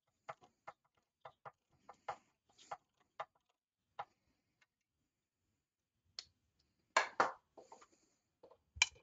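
Hand-crank can opener cutting around the rim of a can of enchilada sauce, its crank clicking a few times a second for about four seconds. After a pause come a few louder clanks about seven seconds in and again near the end.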